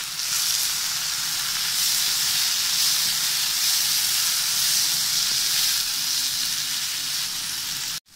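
Chopped tomatoes and sautéed onions frying in hot oil in a pan, a steady sizzle.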